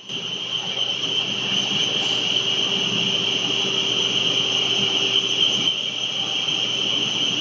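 630 mm double-twist copper wire bunching machine running at speed: a steady high-pitched whine over a steady lower hum, starting right at the beginning and holding without change.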